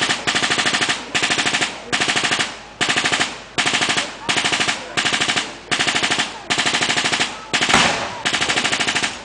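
Machine-gun fire in rapid short bursts, one after another, about a dozen of them, simulating anti-aircraft fire. A single louder bang comes about three-quarters of the way through.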